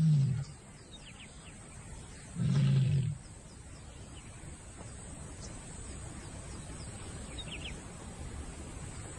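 Lion calling: a short low roar right at the start and another about two and a half seconds in, each under a second long. After that, a steady hiss of outdoor ambience with a few faint bird chirps.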